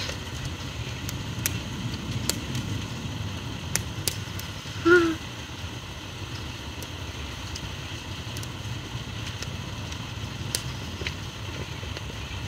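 Steady low rumble of highway traffic, with scattered sharp clicks and one short pitched sound about five seconds in.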